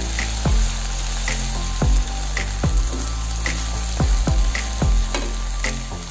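Ground green chilies and green tomatoes sizzling steadily in hot oil in a non-stick frying pan as they are stirred with a spatula, over background music with a thudding beat.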